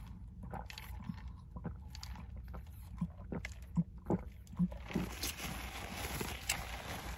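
Faint scattered clicks and smacks of a person eating close to the microphone, with a soft hiss near the end.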